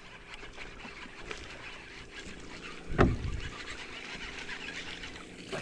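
Baitcasting reel being cranked to bring in a hooked bass, a steady grainy whirr. About three seconds in, a person gives one loud cry that falls in pitch, and a shorter one comes near the end.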